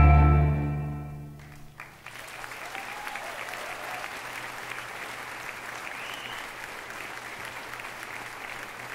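The last notes of the stage music die away in the first second or so, then about two seconds in the audience breaks into steady applause that carries on to the end.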